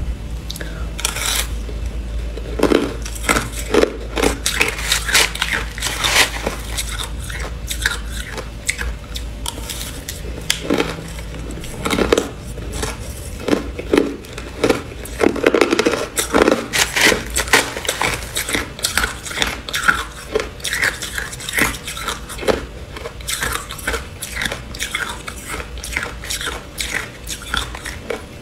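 Crushed ice being bitten and chewed close to a lapel microphone: dense, irregular crunching, one bite after another.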